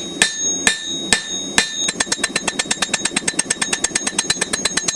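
Blacksmith's hammer striking hot steel on an anvil, drawing down the edge of a knife blade. Four spaced blows ring out, then from about two seconds in comes a fast, even run of lighter strikes, about eight a second.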